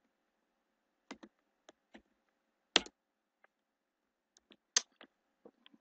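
Computer keyboard keystrokes as code is typed: about a dozen separate clicks at an uneven pace, the loudest two a little under three seconds in and just before five seconds in.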